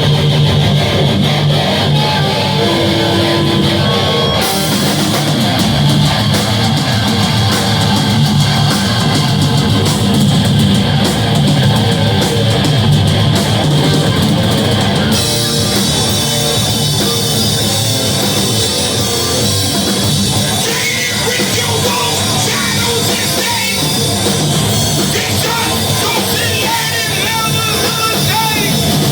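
Live rock band playing a loud, heavy song on electric guitars and drum kit; the full band with cymbals comes in about four seconds in.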